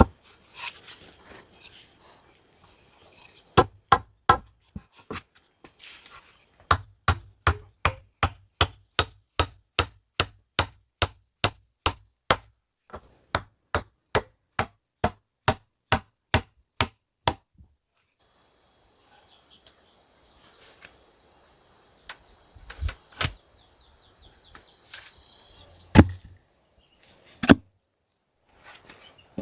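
Repeated sharp blows from a hand tool striking, a few at first, then a steady run of about two a second that stops, and later two loud single strikes. Insects shrill steadily in the pause between.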